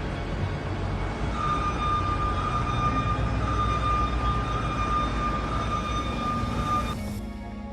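Steady mechanical noise, a low rumble and hiss, with a steady high whine that comes in about a second and a half in and stops near the end, where the noise cuts off and music begins.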